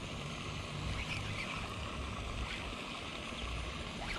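Wind rumbling on the microphone as an irregular low buffeting, with a few faint short high chirps now and then.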